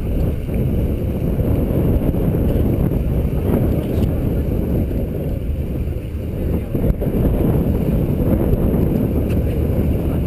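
Wind buffeting the microphone in a steady low rumble.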